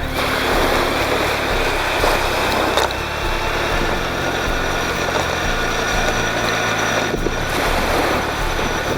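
The Tamiya Hilux RC truck's small electric motor and gearbox whine steadily as it drives on sand. Wind and surf make a rushing noise underneath.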